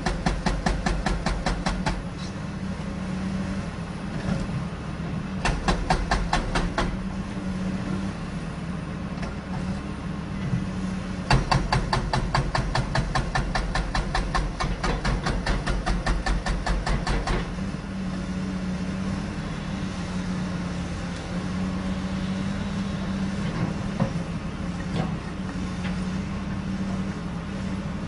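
Hydraulic breaker on a Caterpillar excavator hammering in bursts of rapid, evenly spaced blows: a short burst at the start, another about five seconds in, and a longer run of about six seconds from about eleven seconds in. Between the bursts and after them, the excavator's diesel engine runs steadily.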